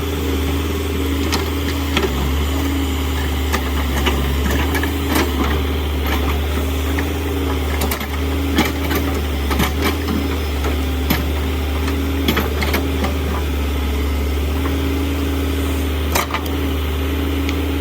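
Diesel engine of a JCB backhoe loader running steadily during demolition work, with scattered knocks and clatter throughout, sharpest about halfway through and near the end.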